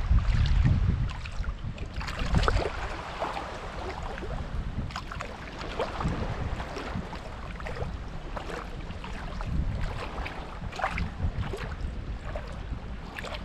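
Shallow seawater lapping and splashing lightly close to the microphone, with wind rumbling on the microphone, strongest in the first second.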